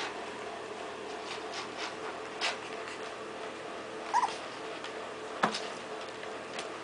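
A three-week-old puppy gives a brief, high double squeak about four seconds in, over scattered small ticks and clicks and a faint steady hum. A sharp click about a second later is the loudest sound.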